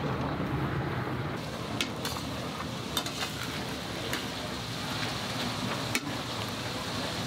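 A low rumble for the first second or so, then food frying in a wide metal pan over a wood fire: a steady sizzle, with a spatula scraping and clicking against the pan a few times.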